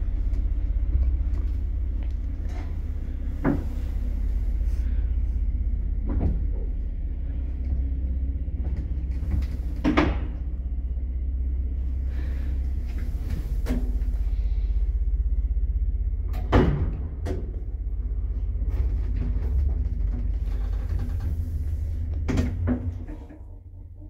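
1979 lift car travelling down its shaft with a steady low rumble, and a sharp knock roughly every three seconds as it passes each landing door. The rumble falls away near the end as the car stops at the ground floor.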